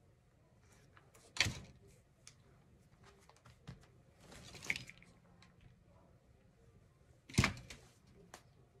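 Handling sounds from work at a craft table: two sharp knocks about six seconds apart, with soft rustling of fabric being folded over a chipboard backing in between.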